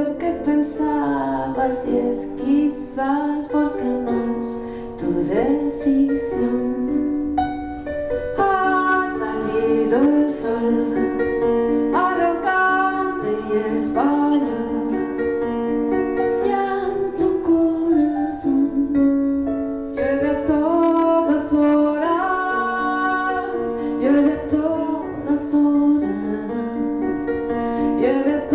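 A woman singing a song live while accompanying herself on a stage keyboard.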